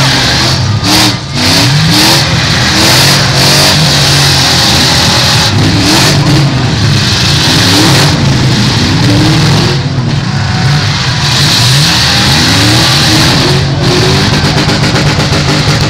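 Full-size demolition derby cars' engines running hard and revving, the pitch rising and falling again and again.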